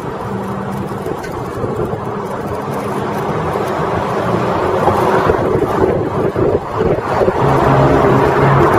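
Street traffic and road noise heard from a moving bicycle, with a low engine-like hum, growing steadily louder toward the end.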